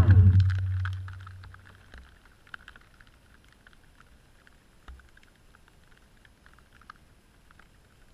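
DJI Phantom 1 quadcopter's motors and propellers spinning down, their whine falling in pitch and dying away within about the first second and a half after the drone comes to rest in the grass. Then only faint scattered ticks.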